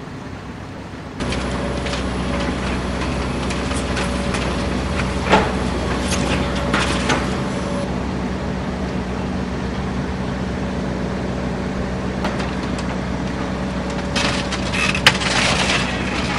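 Hydraulic excavator's diesel engine running steadily as its bucket tears into a house wall, with wood cracking and splintering and debris crashing down. The cracks come in two clusters, about five to seven seconds in and again near the end, where there is one sharp crack.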